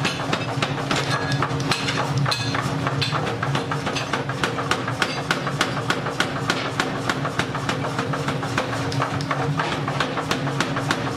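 A 75 kg mechanical power hammer pounding a red-hot axe-head blank with rapid, steady blows, about five a second, over a steady low hum.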